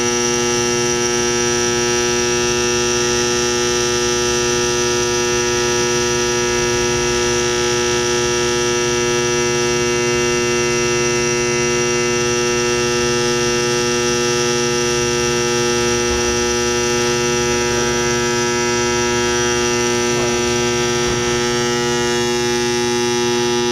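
Induction bearing heater humming steadily, a loud electrical hum of several stacked steady tones, while it heats a bearing to about 250 degrees so that it will slide onto the shaft.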